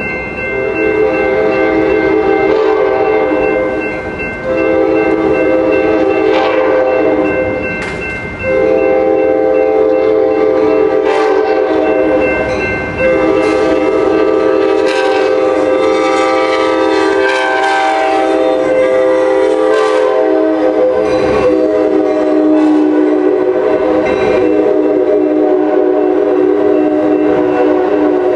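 Passenger train's multi-chime air horn blowing a chord in long blasts, with short breaks about 4, 8 and 13 seconds in, then held unbroken as the train draws close.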